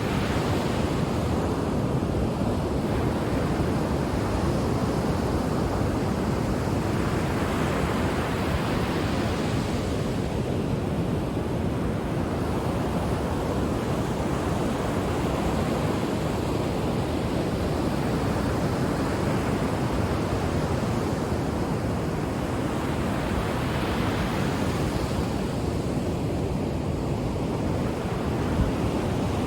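Ocean waves washing onto the shore as a continuous rushing surf, with slow swells every several seconds.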